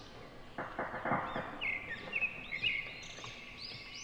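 Small birds chirping over and over in short rising-and-falling calls. From about half a second in, a second of wet rustling and scraping as a steel spoon scoops sliced raw jackfruit strips out of turmeric salt water.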